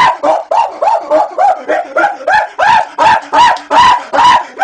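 A rapid run of high-pitched yelps, about four or five a second, each rising and falling in pitch.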